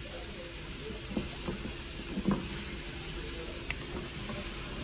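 Steady background hiss with a few faint light knocks and a sharp click about two-thirds of the way through, from handling the coiled GPS antenna cable.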